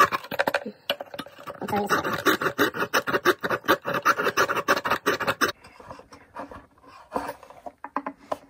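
A small Japanese-style hand saw cutting through a violin fingerboard in quick rasping strokes, played back at double speed. The strokes are loud and dense at first, then quieter and sparser from about five and a half seconds in as the cut nears the end.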